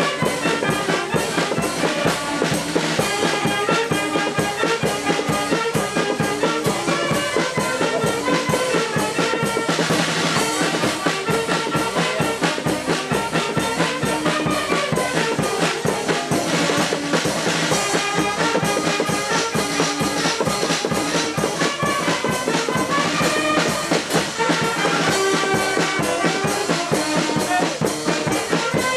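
Municipal wind band playing live: saxophones, clarinets and brass carrying the tune over marching drums that keep a steady beat.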